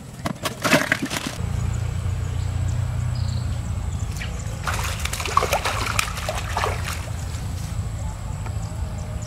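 Water splashing and sloshing in two spells, about a second in and again from about five to seven seconds in, over a steady low rumble that comes in about a second and a half in.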